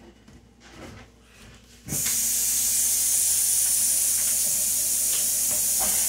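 A kitchen tap is turned on about two seconds in and water runs steadily for hand washing, a loud even hiss.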